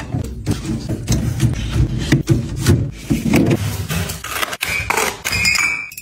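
Kitchen items being handled and set down: a run of scrapes, taps and rustling, with a brief high squeak or ring near the end.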